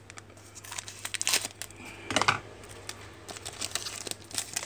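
Foil wrapper of a Panini Select trading-card pack crinkling and cards rustling as they are handled and flipped through, in irregular bursts, loudest about a second in and again just after two seconds.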